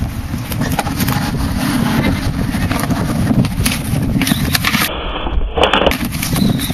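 Skateboard's urethane wheels rolling over concrete, a steady rumble, with wind buffeting the camera microphone and a few sharp clacks of the board.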